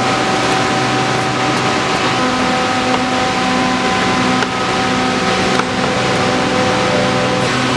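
Woodworking workshop machinery running steadily: a constant rushing noise with several held humming tones that change every few seconds.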